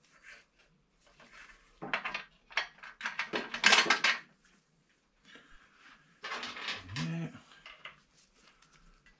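Metal tools and fasteners clinking and rattling as they are handled on a motorcycle's rear subframe, in irregular bursts that are loudest about three to four seconds in.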